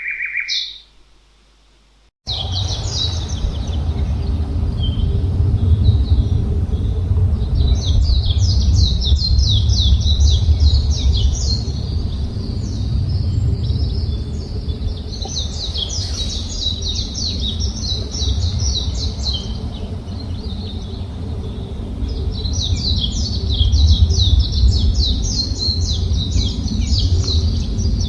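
Small forest birds chirping in bouts of quick, high notes over a steady low rumble. A single call opens, then a short gap before the chirping and rumble cut in abruptly about two seconds in.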